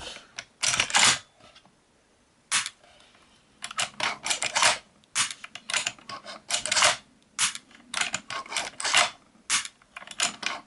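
Sharp metallic clicks and clacks from the action of a Mossberg 930 shotgun. The bolt is worked and the hammer falls on a shell whose water-soaked primer fails to fire, so there is no shot. The clicks come singly and in quick clusters throughout.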